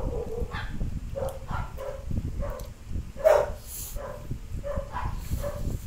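An animal calling over and over in short pitched calls, about one and a half a second, with one louder call about three seconds in.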